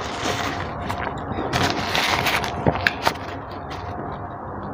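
Paper tissue rustling and crumpling in the hand, loudest about two seconds in, followed by three quick clicks about three seconds in.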